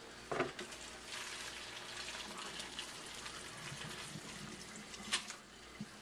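Hot pasta water pouring from a stainless steel pot through a strainer into the sink as cooked spaghetti is drained, a steady splashing pour for about four seconds. A knock comes just after the start and a sharp clink near the end.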